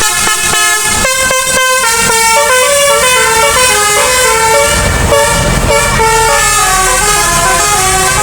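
Bus 'telolet basuri' musical air horn playing a quick tune of short stepped notes. A low engine rumble joins about five seconds in.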